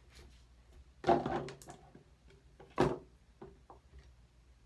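Knocks and clunks of small items being handled and set down on a bathroom counter: a louder clunk about a second in and a sharp knock near three seconds, with a few faint ticks between.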